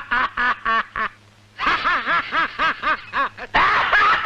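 A man laughing loudly in rapid, high-pitched bursts, with a short pause about a second in, then breaking into a longer, drawn-out laugh near the end.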